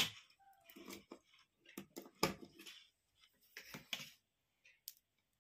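Hands handling electrical wires and a plastic LED tube light on a wooden board: scattered light clicks and rustles, the sharpest at the start, about two seconds in and near four seconds, then dying away.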